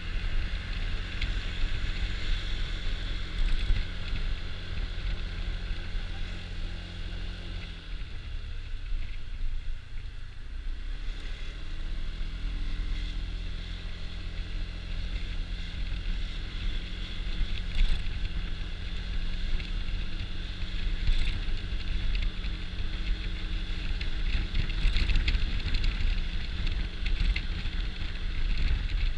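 Honda Dio scooter's engine running on the move, with wind on the microphone. About eight seconds in the engine slows and drops in pitch, then picks up again about three seconds later.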